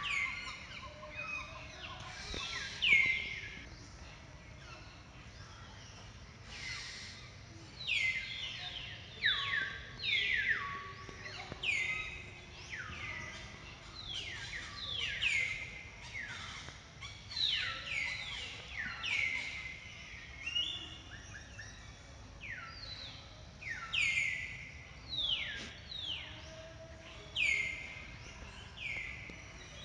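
Birds calling: short chirps that sweep down in pitch, repeated about once a second and often overlapping, over steady low background noise.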